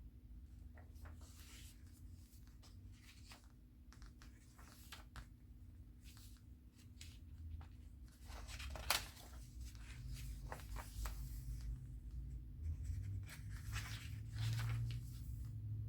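Paper pages of a handmade junk journal being turned and handled: irregular rustling and light paper clicks, with one sharper, louder snap about nine seconds in.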